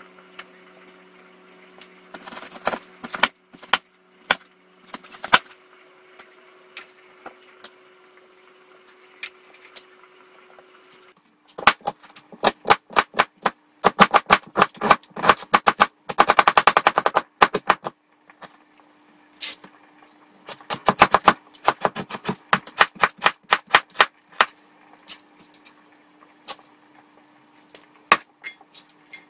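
Kitchen knife chopping quickly on a cutting board, runs of rapid taps several a second with pauses between, as onion is cut up.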